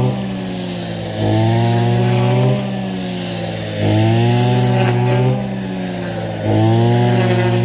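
A small engine running and revving up then easing off in a regular cycle, about once every two and a half seconds.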